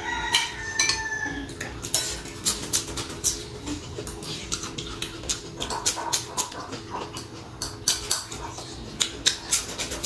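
Close-up eating sounds: lip-smacking and chewing with many quick wet clicks, and a spoon and chopsticks tapping against a glass bowl.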